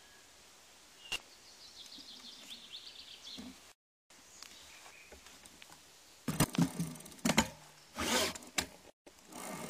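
BMX bike rolling down a leaf-covered dirt trail, heard from a phone mounted on the bike: quiet at first, then from about six seconds in, loud rattles, knocks and rustling as the tyres run over leaves and bumps.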